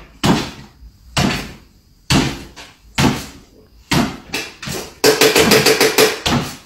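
A small dog jumping repeatedly on a wooden floor, each landing a sharp thump about once a second. Near the end comes a faster, denser run of short rattling sounds lasting just over a second.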